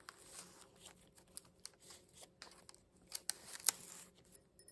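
Paper and card rustling with soft, short handling clicks as the pages and tags of a handmade paper journal are lifted and turned; a few louder crinkles come about three seconds in.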